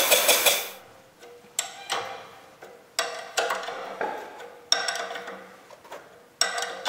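Ratchet wrench on a long extension clicking and clacking in several short bouts as it turns the bolts on the rear wheel hub of a radial-engined motorcycle, each bout a sharp metallic clack with a short ring. Half a second in, the fast rhythmic running of an engine stops.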